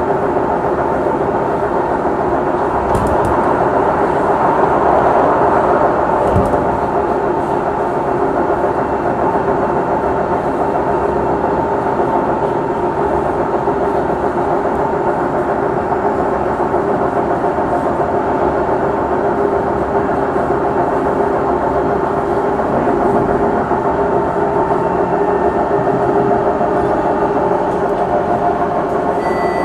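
Singapore MRT train running at speed, heard from inside the carriage: a steady rumble and rush with a steady hum, and a couple of faint knocks a few seconds in.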